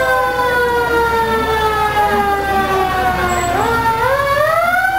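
A vehicle siren wailing: its pitch slides slowly down through the first few seconds, then climbs again near the end.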